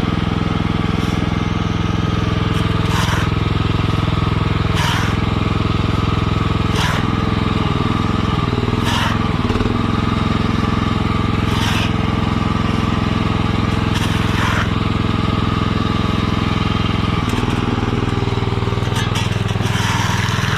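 Mini skid steer's small engine running steadily, with a scraping crunch in sand about every two seconds.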